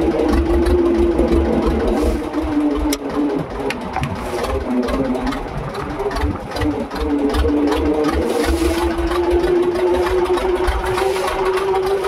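Small boat's engine running steadily under way, its pitch dipping for a few seconds in the middle and then rising back.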